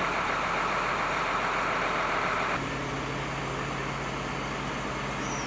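Steady rushing noise; about two and a half seconds in it cuts to a steady low engine hum.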